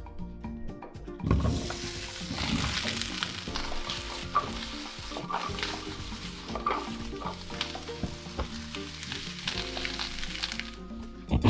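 Cubed zucchini frying in a hot pan, a steady sizzle that starts about a second in and stops shortly before the end.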